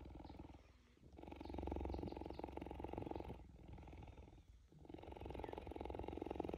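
A cheetah purring steadily while being stroked, a continuous low pulsing rumble in long stretches with a few brief breaks.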